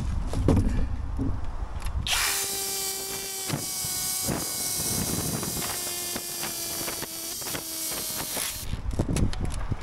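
Cordless drill boring into masonry, running in two long bursts with a short pause between, a steady motor whine under the grinding of the bit. It cuts off near the end, as the drill's battery runs flat.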